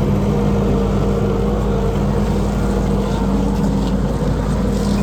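Kubota SVL75 tracked skid steer's four-cylinder turbo diesel engine running at a steady speed, with a constant even drone.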